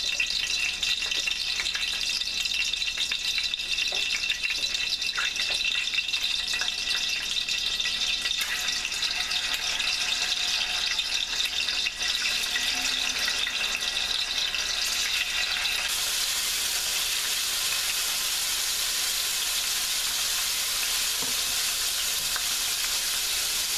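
Blocks of firm tofu frying in hot oil in a stainless steel pan, crackling and spattering as the pieces are laid in by hand. About two-thirds of the way through it settles into a steady, even sizzle.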